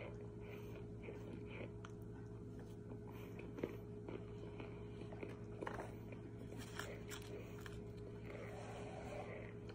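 Chewing and crunching mouthfuls of dampened cornstarch chunks, with a few short sharp clicks (the loudest a little past a third of the way in), over a steady low hum.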